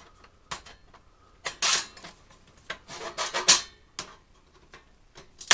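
Steel top cover of a cable box being pried up with a screwdriver, sheet metal scraping and clattering against the chassis in several short bursts, the loudest at the very end.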